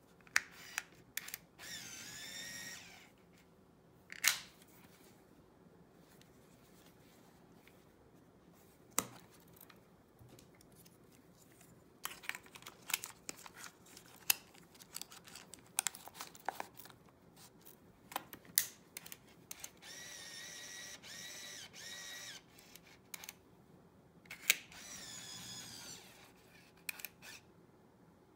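Olympus Mju Zoom Wide 80 compact 35mm film camera being handled: a string of sharp clicks from its buttons, covers and film door, and three spells of electric motor whirring, each one to two and a half seconds long, near the start and twice in the last third.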